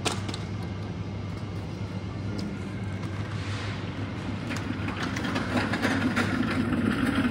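A wire supermarket shopping cart rattling and clattering, the rattles coming thick and growing louder from about halfway through, over the steady low hum of refrigerated display cases. A single sharp click right at the start.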